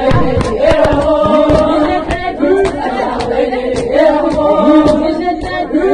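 A female mullaya's voice chanting a Shia latmiya lament, sung over a steady beat of sharp chest-beating slaps, about two to three a second.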